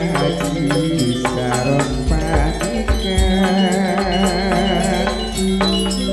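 Gending, gamelan music: metal percussion struck in a steady pulse over deep low drum beats and sustained tones. A wavering melodic line joins about three seconds in and drops out near five.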